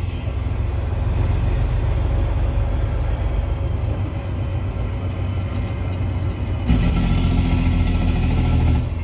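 Peterbilt semi truck's diesel engine running while the loaded truck is driven, a steady low drone that grows louder and fuller about seven seconds in, then drops back near the end.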